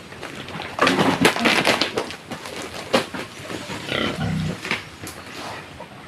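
Pigs grunting in their pen, with a loud rough burst of noise about a second in and a few sharp knocks.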